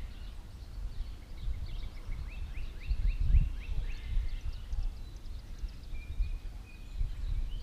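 A bird singing a quick series of rising chirp notes, then a short, steady whistled note. Under it runs a low, uneven rumble, loudest about three seconds in.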